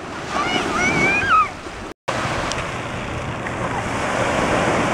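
Ocean surf washing in at the shore, a steady rush, with a faint high voice calling in the first second or so. The sound cuts out completely for a moment at about two seconds, then the surf carries on.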